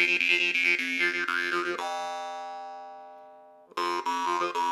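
Large, heavy-framed Dernovoi munnharpe (jaw harp) being played: a rhythmic plucked drone with its overtones shifting up and down, then one pluck left to ring out and fade over about two seconds, the long 'bell ring' sustain. It is plucked again briefly near the end.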